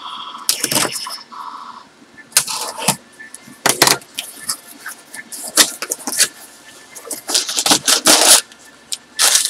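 Small cardboard shipping box being opened by hand: tape pulled off the top and the flaps folded back, then rustling of packing as a hand reaches inside. The sounds come in irregular scraping and crinkling bursts.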